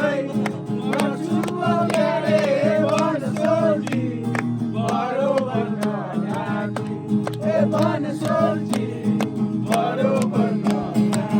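Song with a melodic singing voice over a strummed acoustic guitar.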